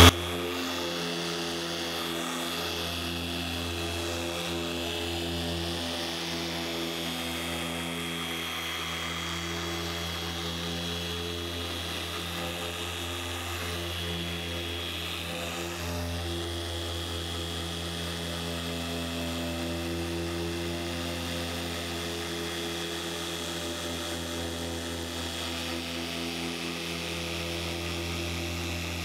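Electric dual-action orbital polisher running steadily at one speed with a steady high whine over its hum, its orange foam compounding pad buffing compound into a car's hood paint during the compounding stage of a paint correction.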